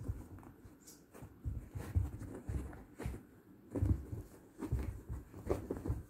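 Two Yorkshire terrier puppies play-fighting on a fabric cover: irregular soft thumps and scuffling as they wrestle and paw at each other.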